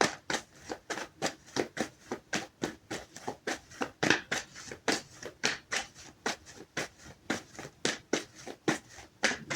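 A tarot deck being shuffled by hand: a steady run of short card slaps, about three a second.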